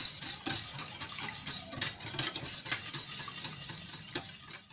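Wire whisk stirring thin custard in a stainless steel saucepan, a steady liquid swishing with the tines scraping and clicking irregularly against the pan. The custard is being stirred constantly over low heat as it cooks.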